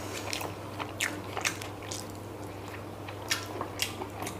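Close-up chewing and lip smacks of people eating chilli chicken and rice by hand: irregular short clicks over a low steady hum.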